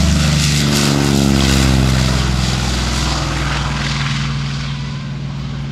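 F4U Corsair's Pratt & Whitney R-2800 radial engine at take-off power as the fighter runs past down the runway. The engine's pitch drops as it goes by, and the sound slowly fades after the pass.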